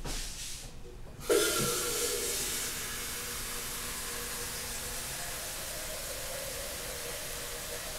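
Water running steadily from a tap, turned on about a second in.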